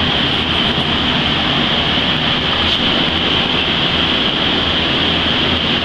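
Steady, loud blowing-air noise with a strong high hiss and a low rumble, unchanging throughout, as from a running shop fan or blower.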